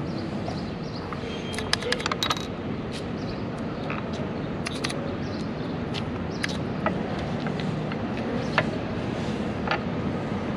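Sharp clicks of plastic chess pieces being set down on the board and a digital chess clock being hit during a fast blitz game, several in a quick cluster about two seconds in, then single clicks every second or so. Steady traffic noise runs underneath.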